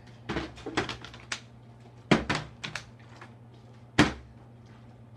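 Plastic water bottle, partly full of water, flipped and landing on a wooden table: a series of knocks and thuds, with the sharpest about two seconds in and again at about four seconds.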